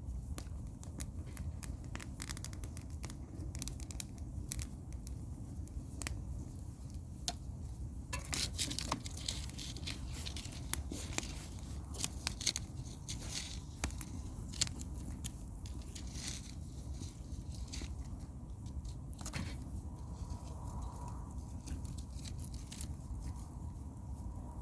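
Wood bonfire burning with irregular crackles and pops over a steady low rush, the crackling busiest midway through.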